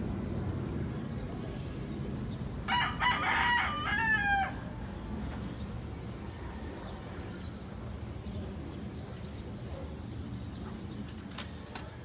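A rooster crowing once, a call of about two seconds that starts a few seconds in and ends on a falling note, over a steady low background rumble.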